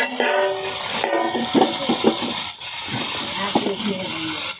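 Three whole rohu fish sizzling in hot mustard oil on a large iron tawa, a steady hiss just after the fish have gone in. Brief voice-like sounds come over it near the start.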